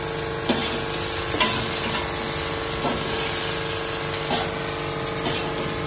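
Chopped onions sizzling in oil in a stainless steel kadai, with a metal spoon scraping and knocking against the pan about once a second as they are stirred.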